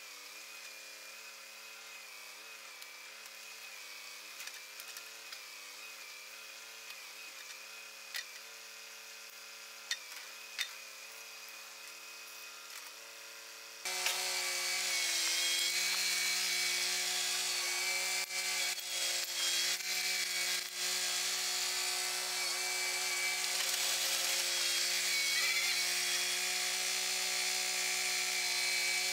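Kubota compact tractor's diesel engine running, its pitch wavering as the backhoe is worked, with a few sharp knocks. About halfway through it becomes suddenly louder and steadier, with a strong hiss over the engine note.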